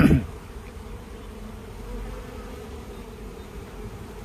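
Honeybee colony in an opened hive, buzzing as a steady low hum.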